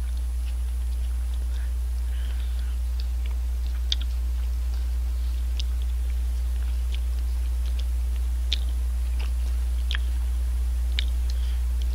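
A spoon stirring and scraping through shaved milk ice in a plastic cup, with scattered light clicks of the spoon against the cup. A steady low hum runs underneath.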